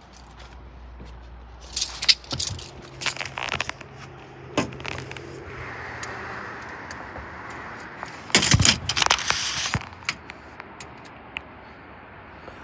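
Clicks and scrapes of a tape measure being handled and run across the base of a roof cargo box, with a louder, longer scraping rush about eight seconds in.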